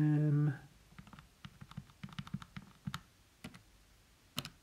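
A short held voice sound at the start, then a run of light, irregular clicks like keys or buttons being pressed, with one sharper click near the end.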